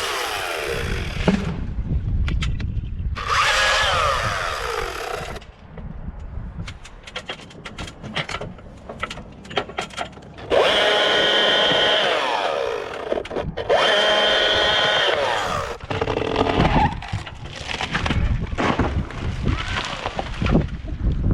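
Chainsaw cutting in several bursts, its pitch sagging as it bites into the wood, with cracking and snapping of rotten locust wood between the cuts.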